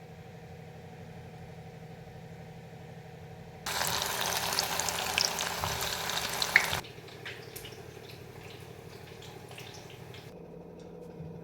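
Food frying in hot oil in a pan: a steady hum, then a loud sizzle about four seconds in that lasts some three seconds, dying down to scattered crackles.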